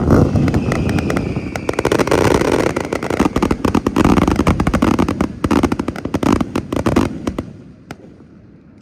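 Fireworks going off in a dense barrage of booms and rapid crackling, which dies away about seven seconds in, leaving only a few scattered cracks.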